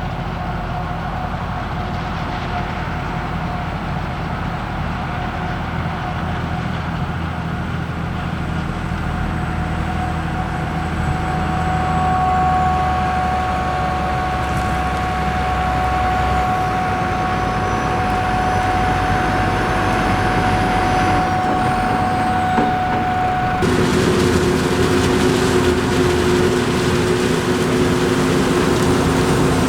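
Heavy farm machinery running steadily under load, with a deep engine drone and a steady high whine over it. The sound changes abruptly about three-quarters of the way through to a different machine's lower hum.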